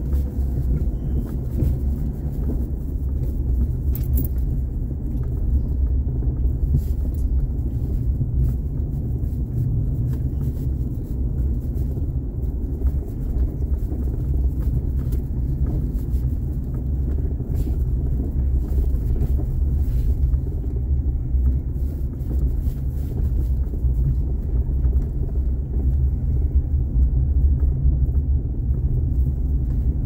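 A car driving on snowy roads: steady low road and engine rumble.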